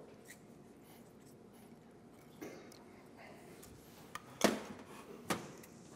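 Quiet room tone broken by a few short knocks: a light one about two and a half seconds in, the loudest about four and a half seconds in and another just under a second later.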